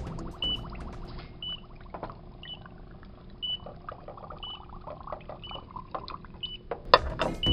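Carbon monoxide meter's alarm beeping: one short high beep about once a second, the meter signalling that it has detected carbon monoxide. Background music plays under it.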